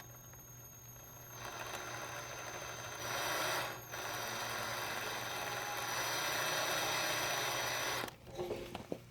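Electric drill running under load, boring into a broken bolt to make a pilot hole for an extractor. The motor whines steadily for several seconds, slows and stops for a moment about four seconds in, then runs again until it stops abruptly about eight seconds in.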